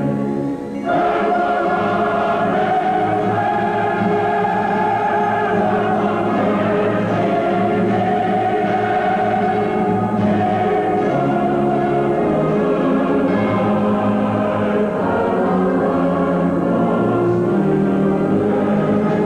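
Choir singing slow, sustained chords with orchestral accompaniment, a new phrase entering about a second in.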